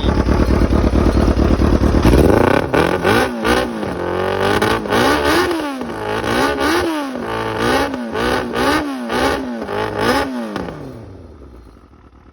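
Kawasaki ZX750 motorcycle's inline-four engine running steadily, then blipped through about eight quick rev-ups and drops, before the sound dies away near the end. The engine is running again after a faulty relay and fuel pump were replaced.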